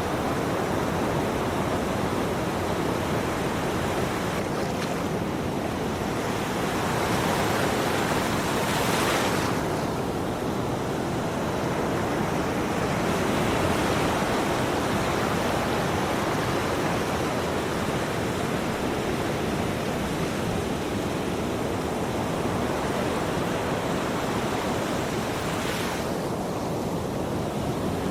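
Ocean waves breaking and washing ashore in a continuous surf roar, swelling gently a few times.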